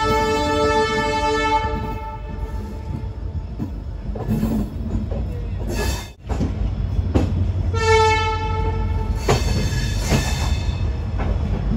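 Horn of the WDP4B diesel locomotive hauling the train, heard on board at speed: a long blast that stops about two seconds in, then a second, shorter blast near the eight-second mark. Steady rumble of the coach on the rails with scattered clanks over the wheels and rail joints underneath.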